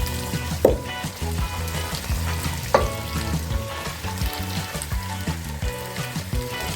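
Marinated chicken wings sizzling as they fry in hot oil with an onion-tomato masala. They are stirred in the pan, with the odd knock and scrape of the utensil against it.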